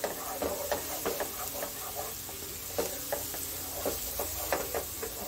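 Ginger-garlic paste and green chillies sizzling in hot peanut oil in a non-stick pan while a wooden spatula stirs them, with irregular scrapes and taps of the spatula against the pan over the steady frying hiss.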